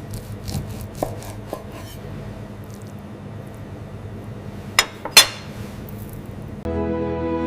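Soft handling clicks and rubs over a low steady hum, then two sharp clicks about five seconds in. Music starts near the end.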